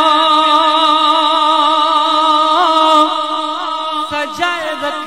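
A man singing a naat solo into a microphone. He holds one long, slightly wavering note for about four seconds, breaks off, then carries on at a lower pitch near the end.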